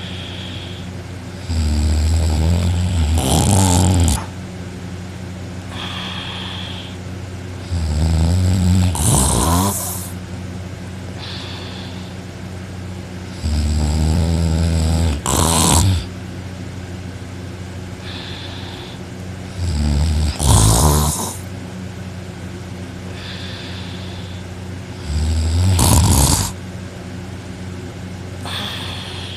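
A person snoring very loudly while asleep on their back with mouth open: five long snores about every six seconds, each starting low and ending in a louder harsh burst, with a fainter breath sound between them.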